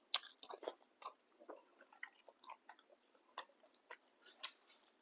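A person chewing a mouthful of boat noodles: soft, irregular chewing and mouth clicks.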